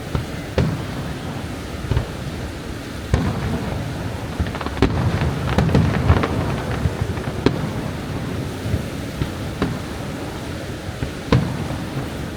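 Aerial fireworks shells bursting with about ten sharp bangs and booms, thickest in a rapid volley mid-way. Underneath runs a steady rushing noise, the roar of the falls.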